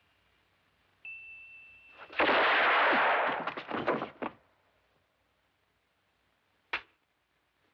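A musical pocket watch's chime sounds one last high note, then a revolver shot goes off with a long, echoing reverberation that breaks up over about two seconds. A single sharp crack follows a few seconds later.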